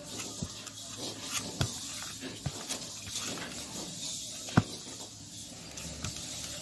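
Hands kneading soft, sticky bread dough on a floured stainless steel plate: irregular soft squishes and pats, with a sharp tap about four and a half seconds in.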